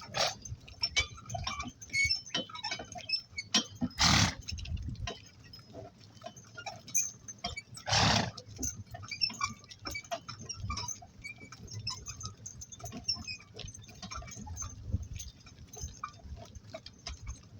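A donkey-drawn work cart on the move: scattered small clinks and knocks from the harness and cart, with hoofsteps. Two short, loud blowing sounds come about four and eight seconds in.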